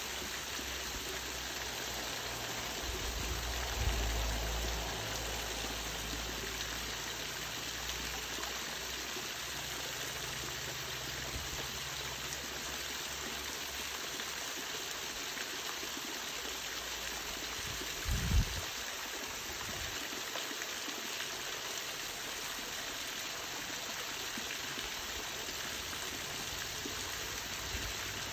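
Small woodland waterfall splashing steadily as thin strands of water fall over a rock ledge into a shallow creek. A low rumble swells around four seconds in, and a brief low thump about eighteen seconds in is the loudest sound.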